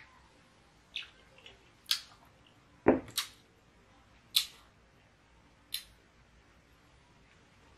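Short sharp clicks and smacks of drinking and eating, about six in all. The loudest, about three seconds in, is a dull thud like a glass set down on a wooden table. Later clicks come as a metal spoon scoops whipped coffee from a ceramic bowl.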